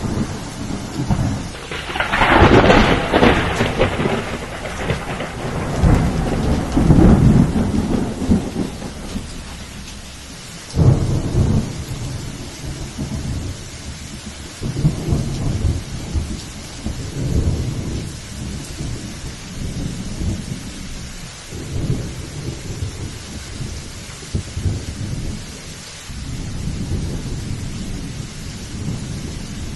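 Steady rain falling in a thunderstorm, with rolling thunder: a loud clap about two seconds in, another sharp crack near the middle, and low rumbles coming and going throughout.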